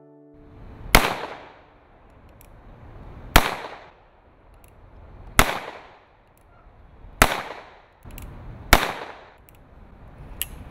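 An 1873 Colt Single Action Army revolver fired five times, one shot every two seconds or so, with fainter clicks in between.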